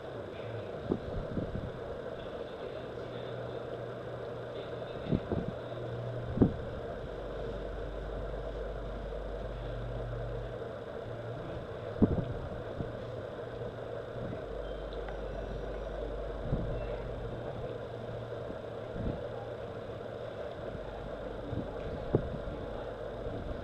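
A steady mechanical hum, like an engine running, that swells and fades in its lowest notes. Several sharp knocks are scattered through it, the loudest about six and twelve seconds in.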